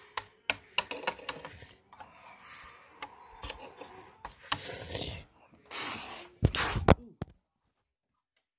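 Rubbing and scraping handling noise with scattered sharp clicks as plastic toy bricks are moved across a wooden table close to the microphone, cutting off to dead silence about seven seconds in.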